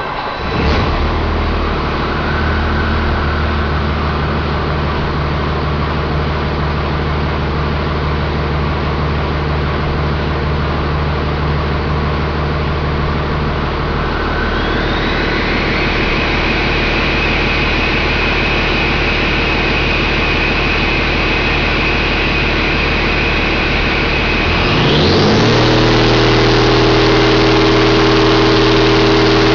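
A 2013 PACCAR PX-8, an 8.3-litre inline-six diesel, running on a test stand. It idles steadily and a high whine joins about halfway through. About eight seconds before the end the engine revs up and holds a higher, louder steady speed.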